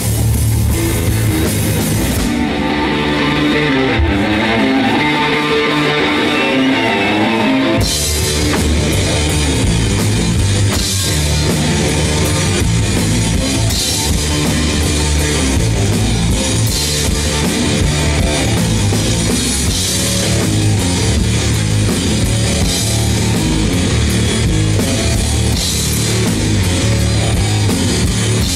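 Live rock duo of electric guitar and drum kit playing loud and driving. About two seconds in the drums drop out and the guitar carries a riff alone, and close to eight seconds in the drums crash back in with the full band.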